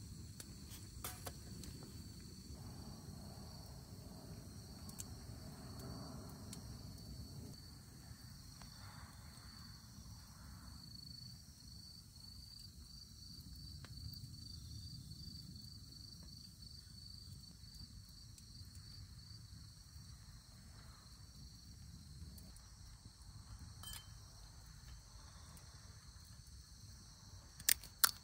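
Faint insects trilling in a steady, high, pulsing chorus over a low, even background hiss, with scattered light clicks and a couple of sharper clicks near the end.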